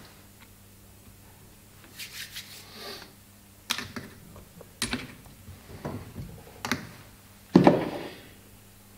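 Scattered clicks, light knocks and rubbing of small parts and tools handled on a workbench, starting after a couple of quiet seconds, with one louder thud near the end.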